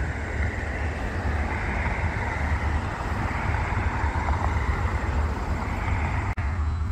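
Cars passing on the road below, their tyre noise swelling and fading, over a steady low rumble.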